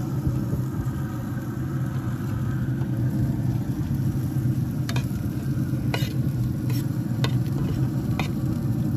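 Metal tongs stirring and dunking wings in a pot of thick sauce, clicking sharply against the pot about half a dozen times, mostly in the second half. Under it runs a steady low rumble with a hum.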